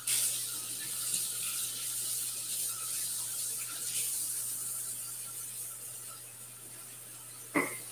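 Kitchen tap turned on and running into the sink while a hand is washed under it, a steady hiss of water that slowly grows quieter. A brief knock sounds near the end.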